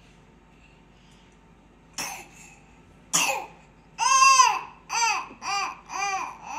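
Two short breathy bursts, then a toddler vocalizing a string of about five sung-out 'ah' syllables, each rising and falling in pitch, about two a second.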